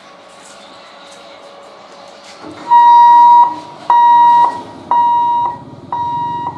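Level crossing's electronic warning alarm beeping about once a second, four beeps starting about three seconds in, each fainter than the last, sounding for an approaching EMU train.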